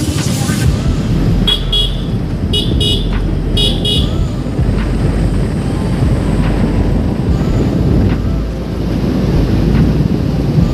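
Motorcycle riding along at speed, engine and wind noise making a steady low rumble, with three quick clusters of short high beeps a couple of seconds in.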